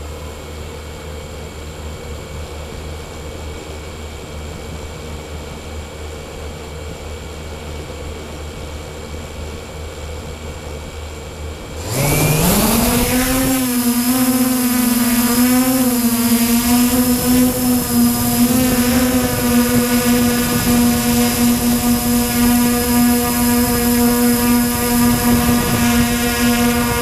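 MJX Bugs 3 quadcopter's brushless motors and propellers, recorded from the GoPro mounted on the drone. A low steady hum comes first. About twelve seconds in, the motors spool up with a rising whine as it lifts off, then hold a loud, steady whine that wavers slightly in pitch.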